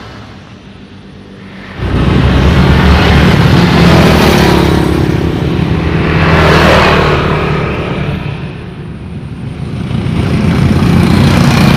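Motor traffic passing close by on a road: engine noise starts abruptly about two seconds in, then swells and fades as several vehicles go past.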